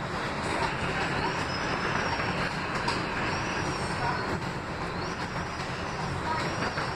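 R160B subway car running along elevated track, heard from inside the car: a steady rumble of wheels on rails, with a faint high-pitched whine that rises and falls several times.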